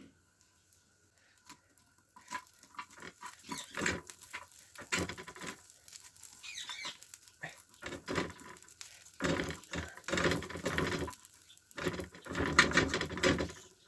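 Hands coating chicken wings: irregular rustling, patting and clicks of handling. It starts after about two seconds of near quiet, with louder stretches of rustling near the end.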